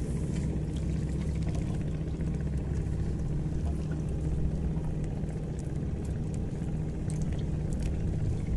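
An engine running steadily with a low hum, with a few faint ticks over it.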